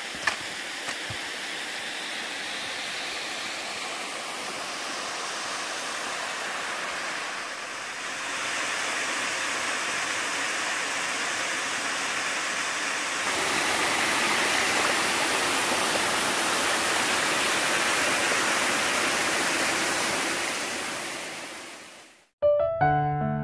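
Rushing water of a mountain valley stream with small waterfalls, a steady rush that gets louder in two steps, about eight and thirteen seconds in, and then fades out. Piano music begins in the last second.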